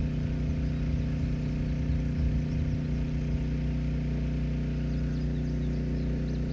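Small pull-start engine driving a water pump, running steadily at a constant speed while it pumps pond water through the hoses.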